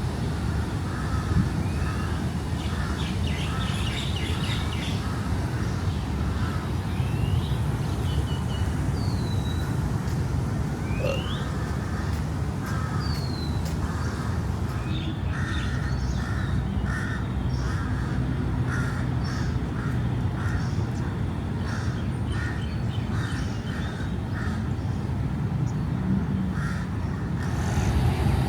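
Crows cawing over and over, with a few short rising bird whistles, over a steady low rumble of city traffic.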